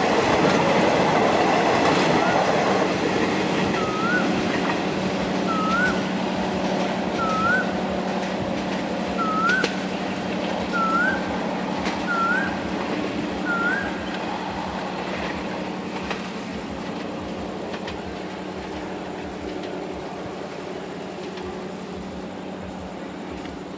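Diesel-hauled passenger train pulling away: the rumble and clatter of the coaches' wheels on the rails fades steadily as the last coach passes and the train recedes, leaving a distant steady drone. A short rising chirp repeats about every second and a half through the first half.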